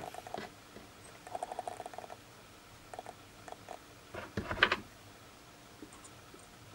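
Small clicks and taps of hand tools and battery parts being handled on a workbench: a quick patter of light ticks, a few scattered taps, then a louder short clatter a little past halfway.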